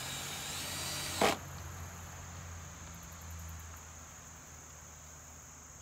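Insects trilling steadily and high-pitched in the garden, with a single sharp knock just over a second in and a low hum fading out in the first half.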